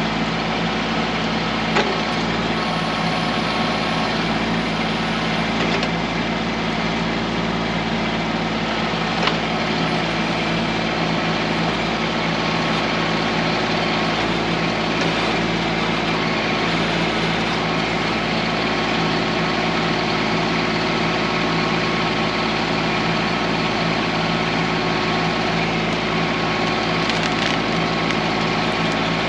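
Kubota B2650 tractor's three-cylinder diesel engine running steadily during backhoe stump work, with two short sharp knocks about two and nine seconds in.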